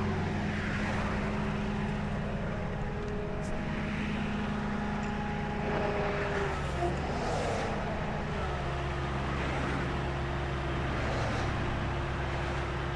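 Road traffic passing by, vehicles going past one after another over the steady hum of an idling engine.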